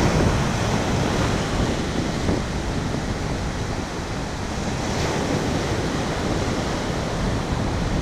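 Ocean surf breaking and washing up the beach in a steady rush, with wind rumbling on the microphone.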